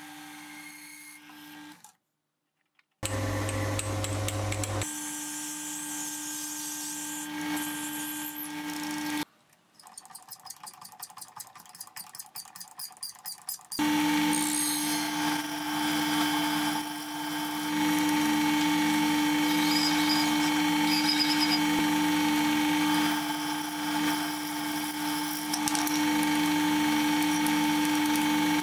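Mini lathe running with a steady hum as it spins brass rod, first under a knurling tool and then, from about halfway on, with a turning tool cutting the brass, which is the loudest part. A short stretch of quick ticking falls in the middle, with brief breaks where the footage is cut.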